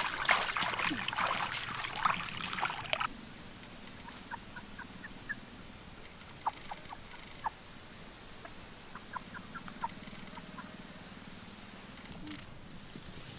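Water splashing as feet wade through a shallow stream, stopping suddenly about three seconds in. Then chickens cluck in short, scattered notes over a steady high-pitched drone.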